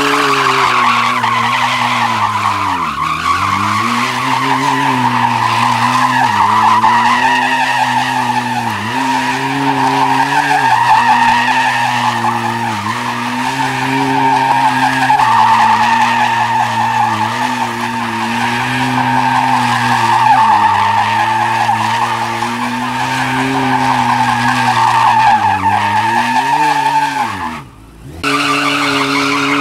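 Sport bike engine held at high revs during a rear-tire burnout, with the tire squealing steadily. The revs dip briefly every few seconds, and the sound drops out for a moment near the end.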